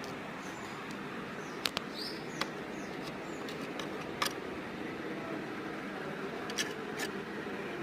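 Sharp clicks of small parts and tools being handled over a steady hiss while a dusty laptop is worked on, about half a dozen clicks spread through; faint bird chirps in the background.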